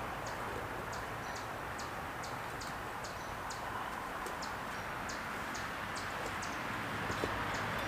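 Steady outdoor hiss with short, high chirps repeating a few times a second.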